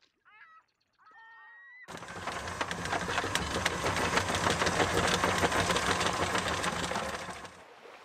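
A loud, dense rapid rattling clatter starts suddenly about two seconds in and cuts off shortly before the end. It is preceded by faint pitched gliding tones.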